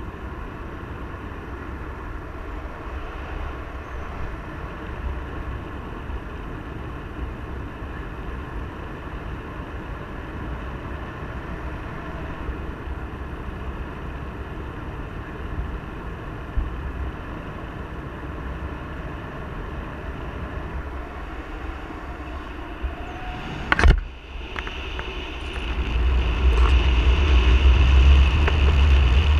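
Airflow buffeting the microphone during a paraglider flight: a steady low rumble of wind. A single sharp knock comes a little before the end, and then the wind noise grows much louder as the glider banks into a turn.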